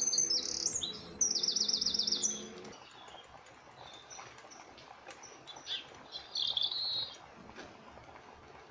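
Small birds chirping, with a fast, even trill in the first couple of seconds and a short burst of chirps near the end.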